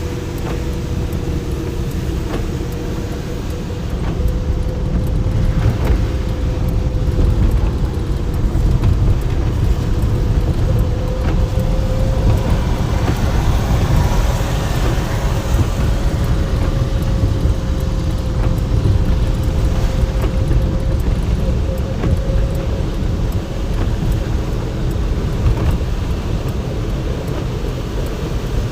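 Car driving at speed on a motorway: a steady low rumble of tyres and engine with a constant droning tone, getting a little louder about four seconds in.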